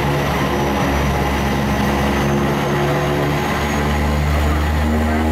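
Light propeller aircraft's engine running steadily as the plane taxis, heard from inside the cabin; it grows a little louder and deeper about four seconds in.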